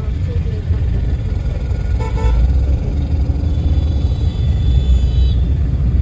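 Car engine and road rumble heard from inside a moving car's cabin. A vehicle horn toots briefly about two seconds in, then a fainter horn tone holds for about three seconds and cuts off near the end.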